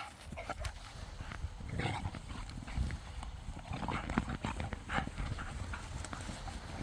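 Two dogs, a Kangal among them, play-fighting: irregular scuffling and thudding of paws and bodies, with short dog vocal sounds mixed in.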